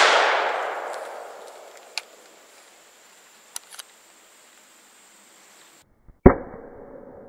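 The blast of a Rossi Circuit Judge .410 revolving carbine firing a 3-inch shotshell dies away over about a second and a half, followed by a few faint clicks. About six seconds in, a single very sharp bang, heard from beside the target, rings out briefly and fades.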